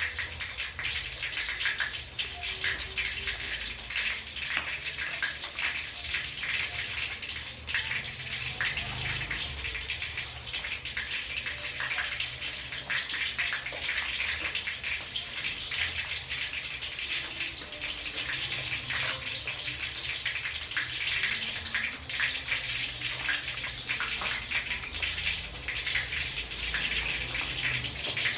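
A whole fish shallow-frying in hot oil in a wok with garlic cloves: a steady sizzle full of small crackling pops.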